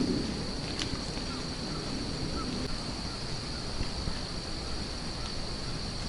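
Wet woodland ambience after rain: a steady high hiss and low wind rumble, with a few short, faint bird chirps and a couple of light ticks.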